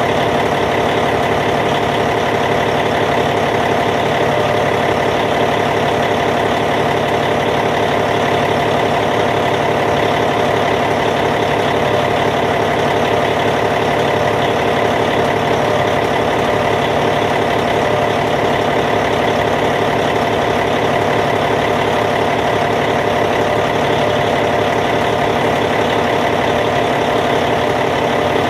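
Caterpillar C15 six-cylinder diesel engine of a D8T bulldozer idling steadily, with an even, unchanging note.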